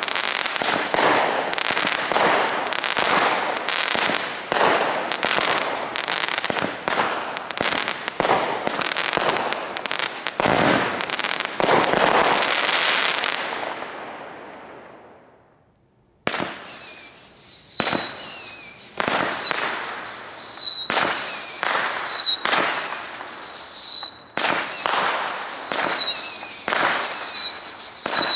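Aerial fireworks going off: a dense, rapid run of pops and crackling bursts that dies away to near silence about fourteen to sixteen seconds in. A new series then starts, each shot followed by a whistle that falls slightly in pitch, about one a second.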